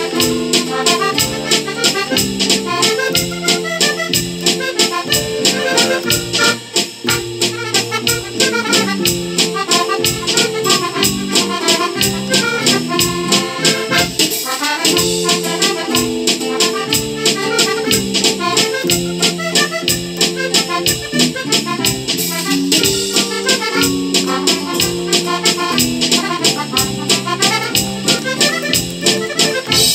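Button accordion playing a waltz melody over a programmed backing track of drums, bass and synth guitar. A steady drum beat runs underneath.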